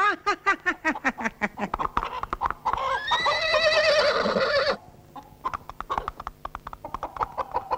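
Horse hooves clattering quickly, then a horse neighing for about two seconds as it rears, the loudest part, followed by fainter, scattered hoofbeats.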